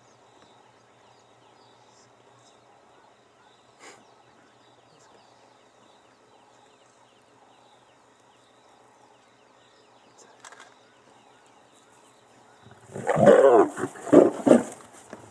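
Lioness snarling and growling at a male lion, two loud rough bursts close together near the end, after a long stretch of faint bush background.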